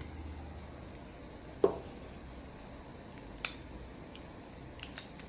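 Small parts and tools handled on a workbench: a light knock with a brief ring about a second and a half in, a sharp click about halfway, then faint ticks, over a steady high-pitched whine.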